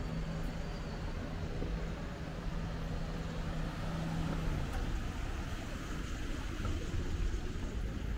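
Street traffic ambience: a motor vehicle's engine running close by as a steady low hum that stops about four and a half seconds in.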